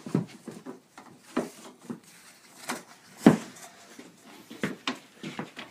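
Irregular wooden knocks and clunks as a hot, freshly steamed ash canoe stem is handled and forced into a bending form. There are about half a dozen separate knocks, the loudest a little past halfway.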